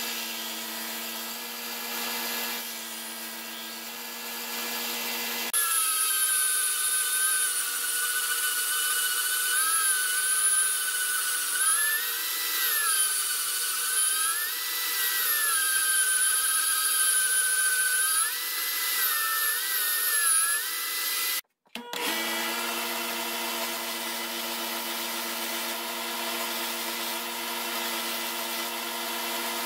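Workshop power tools running in turn. First a belt grinder hums steadily as the steel knife blade is ground. About five seconds in comes a louder bandsaw cutting a wooden handle block, its pitch rising and falling as the cut loads it. After a brief break, the belt grinder hums steadily again as the wooden handle is shaped against the belt.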